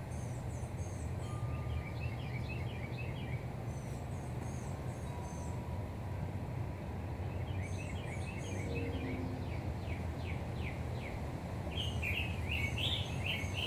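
Songbirds chirping in several short bursts of quick, high notes, loudest near the end, over a steady low rumble of outdoor background noise.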